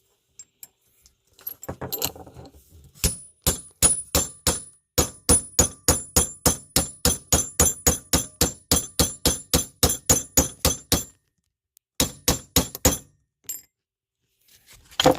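A claw hammer striking a steel chisel wedged into a steel shelf clip, spreading the clip's jaws open. About two dozen sharp, ringing metal-on-metal blows come at roughly three a second, then after a short pause four quicker blows follow.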